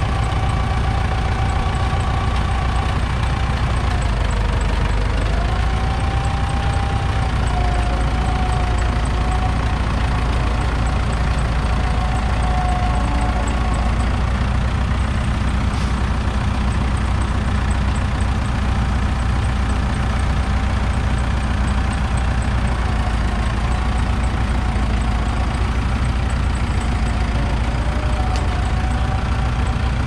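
Frick circular sawmill running steadily, powered by a Minneapolis Moline engine, with a loud low drone and a whine that sags and recovers in pitch a few times.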